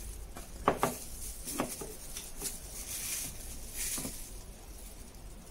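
A few light knocks and clicks from kitchen items such as bottles and a plate being handled on a counter, the two loudest just before a second in.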